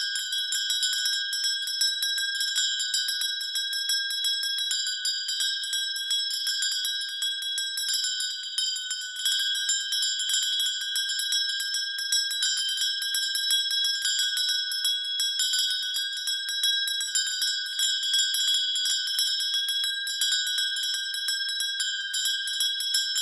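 Hand bell being shaken continuously, its clapper striking rapidly and without pause so the bell rings on one steady pitch with bright overtones.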